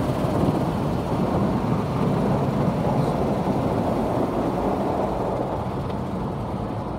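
Automatic tunnel car wash pouring water and foam over the car, heard from inside the cabin as a steady, muffled rushing wash, easing off slightly near the end.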